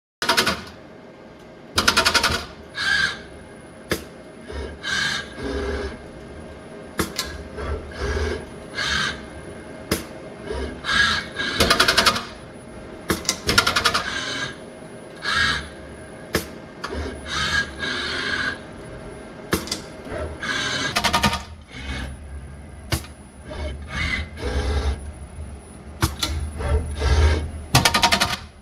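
Flexible parts-feeder robot cell at work: short rattling bursts every second or two, as metal zippers are shaken and clatter on the feeder's plastic tray, with sharp clicks in between and a faint steady hum underneath for most of it.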